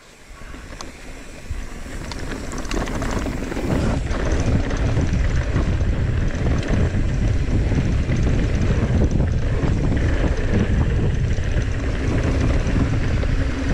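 Wind buffeting the camera microphone and tyres rolling over packed dirt and gravel as a mountain bike descends a trail, building over the first few seconds to a steady loud rumble, with scattered clicks and rattles.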